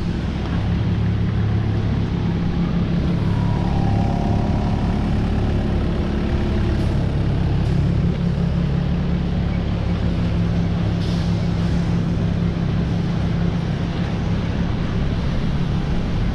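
Komatsu PC55MR mini excavator's diesel engine running steadily under load as it works, with a brief higher-pitched hydraulic whine about three to five seconds in and a few sharp knocks from the machine against rubble.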